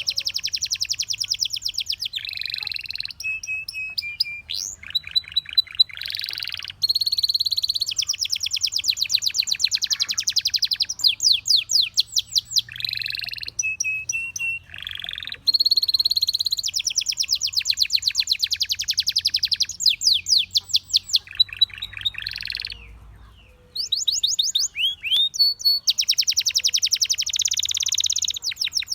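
Domestic canary singing a continuous song of fast trilled rolls, each a rapid run of repeated sweeping notes, switching between rolls every second or few seconds, with short held whistles in between and a brief pause about four-fifths of the way through.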